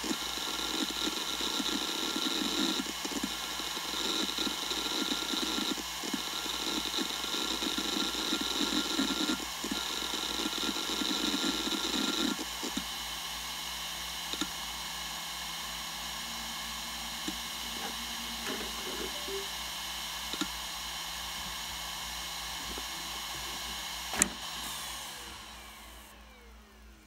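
Western Digital Raptor WD1600ADFD 10,000 rpm hard drive running: rapid, irregular seek chatter over a steady spindle whine for about the first twelve seconds, then the whine alone. About 24 seconds in there is a sharp click, and the whine then falls in pitch and fades as the drive spins down.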